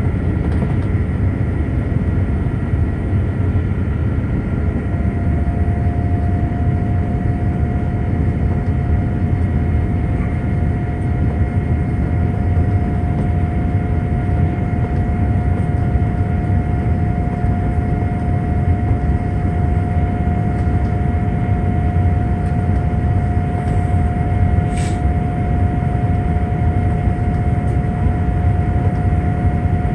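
Steady cabin noise of a Boeing 787-9 climbing after takeoff: a low, even rumble of the engines and the air rushing past. A faint steady whine joins about five seconds in.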